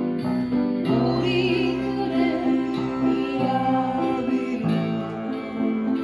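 Upright piano played with both hands: chords under a melody, with steady rhythmic note onsets.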